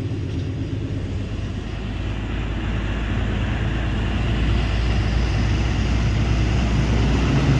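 A moving truck's diesel engine running with road noise, heard from inside the cab as a steady low drone that grows a little louder toward the end.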